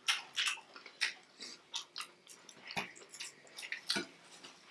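Close-miked mouth sounds of people eating soft food such as mashed potatoes: irregular wet chewing and lip smacks, with two louder knocks about three seconds and four seconds in.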